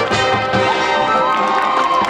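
Crowd in the stands cheering for a high school marching band, with high whoops and yells that rise and fall, over steady held notes of band music.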